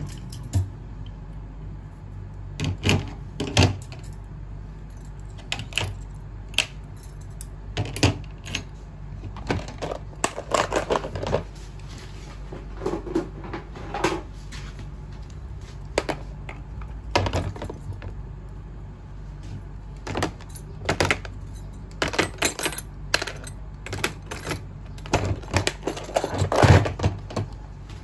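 Steel nail tools (cuticle nippers, nail clippers and pushers) clinking and clicking as they are handled and laid into a clear plastic case on a stainless steel draining board. The sharp clicks come irregularly throughout, the loudest near the end, over a steady low hum.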